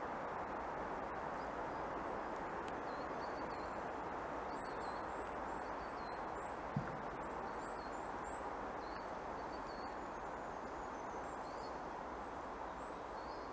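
Woodland ambience: a steady breeze rushing through pine trees, with birds chirping in short high notes throughout. A single brief low thump comes about halfway through.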